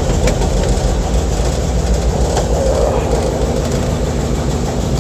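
1952 Chevrolet's inline-six engine idling steadily, with a few faint clicks over it.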